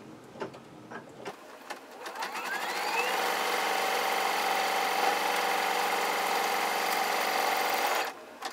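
Brother Innov-is XV8550D embroidery machine starting up, its whine rising in pitch as it gets up to speed, then stitching steadily at speed for about five seconds before stopping abruptly near the end. It is stitching out a color-break line on an in-the-hoop quilt block.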